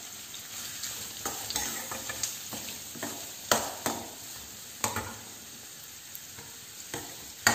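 Chopped onions sizzling in hot oil in a kadai as a spoon stirs them. The spoon clicks and knocks against the pan several times.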